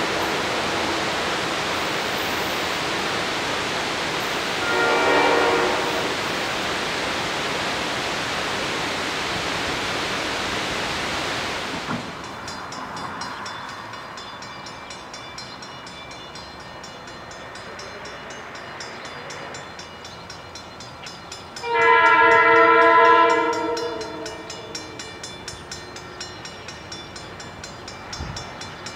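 Diesel train passing with a steady rumble, and its horn sounding briefly about five seconds in. After a cut it is quieter, then the locomotive horn blasts loudly as a chord of several notes for about a second and a half. Near the end a grade crossing bell rings in regular strokes.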